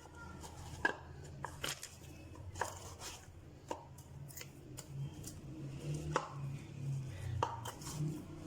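Kitchen prep: irregular sharp taps and knocks, like a knife chopping on a board, roughly one a second, over a low steady hum.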